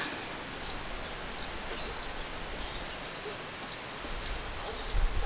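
Outdoor ambience under trees: a steady background hiss with faint, brief bird chirps scattered throughout, and a low rumble swelling near the end.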